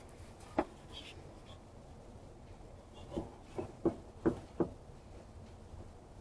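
A few light clicks and knocks over faint room tone: one about half a second in, then a cluster of five close together near the middle.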